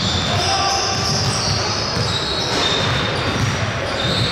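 Basketball game play: sneakers squeaking repeatedly in short high squeals on the court while a basketball bounces.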